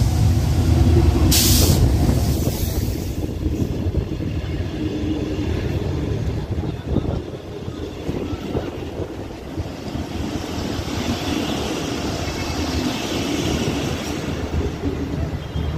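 Diesel-electric passenger locomotive rumbling past, with a brief hiss about a second and a half in. Then the passenger coaches roll by, their wheels knocking over the rail joints, with a high wheel squeal from about ten seconds in as the train draws into the station.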